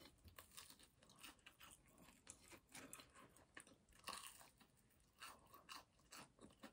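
A kitten chewing with faint crunching: a run of small, irregular clicks, a little louder about four seconds in.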